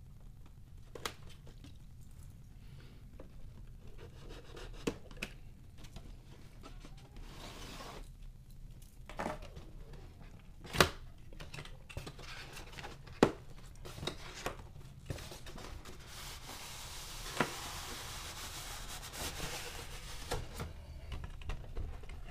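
Cardboard packaging being opened by hand: scattered sharp taps and knocks, the loudest two about halfway through. In the second half a long scraping rustle as the cardboard sleeve is slid off a styrofoam inner box.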